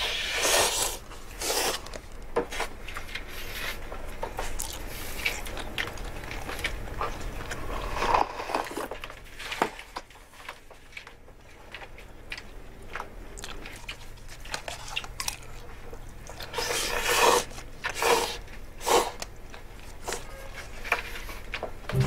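A man eating cup ramen with chopsticks: repeated noisy slurps and chewing, louder in the first couple of seconds and again in a cluster of slurps about 17 to 19 seconds in, over a low steady hum.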